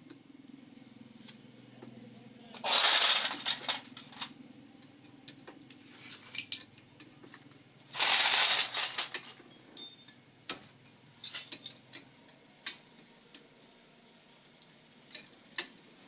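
Metal tools and parts clinking and tapping with sharp scattered clicks, with two short hissing bursts, one about three seconds in and one about eight seconds in.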